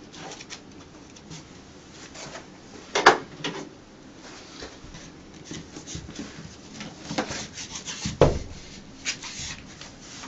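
Self-adhesive fabric wallcovering being rubbed and pressed onto the wall and tucked in at its edge: dry scraping and rustling, with two sharper knocks, a few seconds in and again about eight seconds in.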